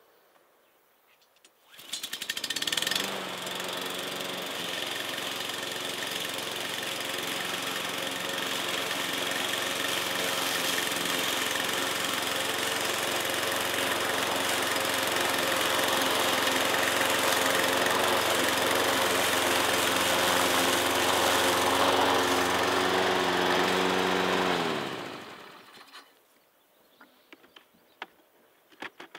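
AL-KO PowerLine 5300 BRV petrol lawn mower's engine running steadily while cutting tall grass. It comes in about two seconds in and winds down and stops near the end, followed by a few faint clicks.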